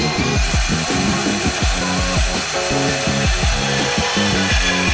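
DeWalt portable band saw running steadily as its blade cuts through an aluminum intercooler pipe. Background music with a heavy, regular bass-drum beat plays loudly over it.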